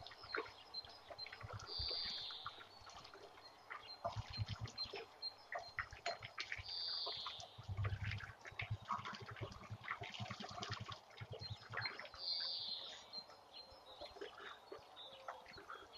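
Clarified butter (ghee) made from milk cream, sizzling and crackling with many small pops in an aluminium wok as it is stirred steadily with a spatula. This is the final stage of cooking: the water is boiling off and the milk solids have settled to the bottom.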